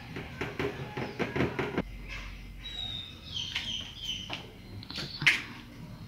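Blended strawberry liquid poured from a plastic blender jar into a plastic bucket, splashing and glugging for the first couple of seconds. Then comes light handling of the plastic jar, with one sharp knock about five seconds in.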